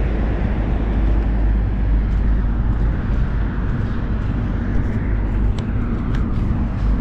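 Road traffic passing steadily, heavy trucks among it: a constant low rumble of engines and tyres with no single vehicle standing out.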